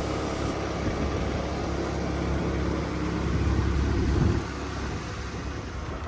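Motorcycle engine running on the move, with low wind rumble; the sound builds slightly until about four seconds in, then drops.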